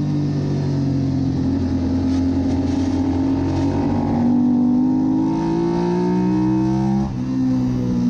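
Suzuki SV650's V-twin engine at race pace. Its revs hold steady, then climb under hard acceleration, drop sharply with a quick upshift about seven seconds in, and start climbing again.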